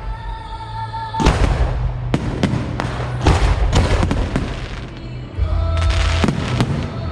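Fireworks going off in repeated bursts, each trailing a crackle, over steady music.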